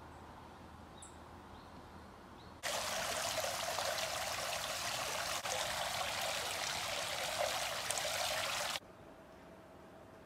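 Hot spring water gushing and splashing steadily from a spout into an outdoor bath. It starts abruptly about two and a half seconds in and cuts off abruptly near the end, with only faint ambience before and after.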